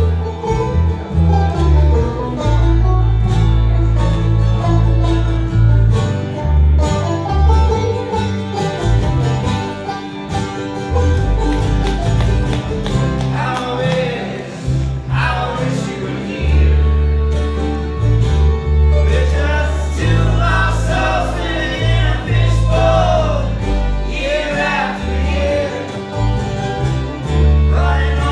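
Bluegrass band playing: banjo, mandolin, fiddle, guitar and upright bass, with voices singing from about halfway through.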